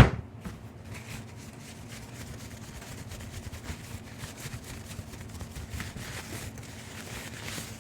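A quick squirt from a Mighty Mist alcohol sanitizer spray bottle, then faint rubbing and handling noise as the jaw harp is worked over.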